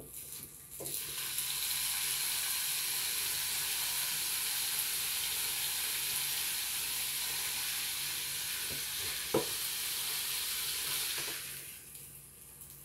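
Bacon-wrapped chicken sizzling hard between the hot plates of a flip waffle maker as the lid is pressed down on it. The sizzle swells about a second in, holds steady, and dies away near the end, with one short knock a little past two thirds through.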